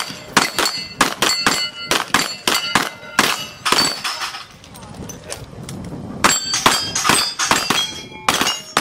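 Rapid string of shots from a Smith & Wesson Model 627 V-Comp revolver, a few per second, each with the clang of steel targets ringing after the hits. The shots stop for about two seconds midway, then carry on just as fast to the end.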